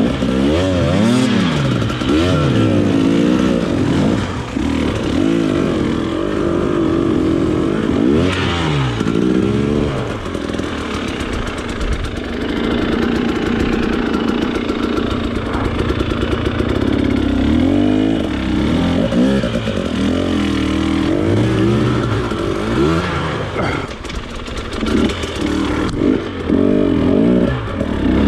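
Trail motorcycle engine being ridden off-road, its pitch climbing and dropping again and again as the throttle is opened and closed.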